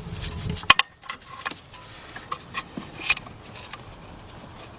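Irregular metal clicks and clinks of hand tools knocking against metal in an engine bay, the loudest about a second in, with a low rumble of handling at the start.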